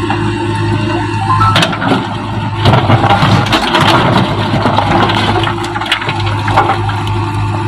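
JCB backhoe loader's diesel engine running steadily under load, with a loud burst of crunching and cracking from about two and a half to four and a half seconds in, as the machine works.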